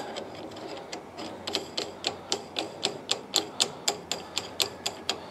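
Rapid, evenly spaced mechanical clicking, about four sharp clicks a second. It starts about a second and a half in and runs until near the end.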